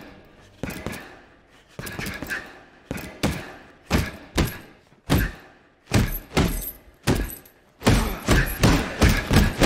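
Punches thudding into a heavy punching bag, with an echo from the large room. The blows come in ones and pairs at first, then speed up into a fast flurry of about three a second near the end.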